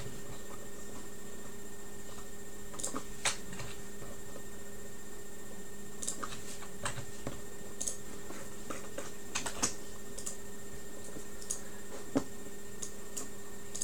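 Scattered light clicks and taps at irregular intervals, over a steady electrical hum.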